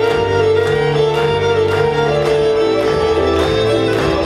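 Solo violin playing a sustained melody over a backing track with bass and a steady beat.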